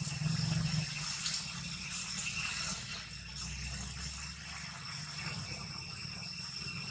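Steady, high-pitched buzzing of insects in the trees, with a low rumble underneath.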